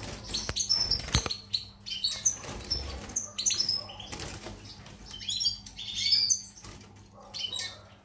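Caged European goldfinches giving short, high chirps scattered throughout, with wing flutters and a few small knocks of birds moving about the cage near the start.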